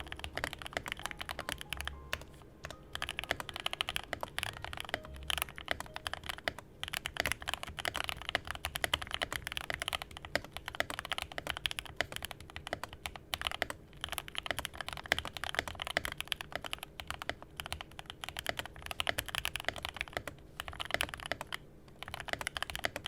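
Continuous typing on a Yunzii KC-68 mechanical keyboard fitted with factory-lubed Gateron Silver linear switches: a dense run of keystroke clacks with a few short pauses.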